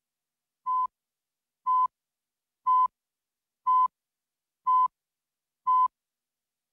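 Countdown leader beeps: a short, steady electronic test-tone beep once a second, six times, with dead silence between.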